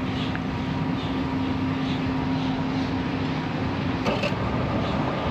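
Johnson outboard motor running steadily with an even hum, freshly started on its newly replaced starter and firing properly. A brief sharp click about four seconds in.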